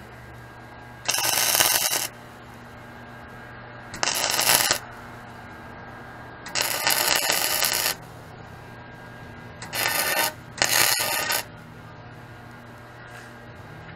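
Wire-feed (MIG) welder arc crackling in five short bursts as tack and stitch welds are laid on a mini bike's frame tubes, each burst lasting about half a second to a second and a half, with a steady low hum between them.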